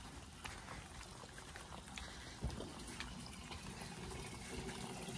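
Water running from a roadside spring fountain's spout, faint at first and growing louder toward the end, with one soft thump about halfway.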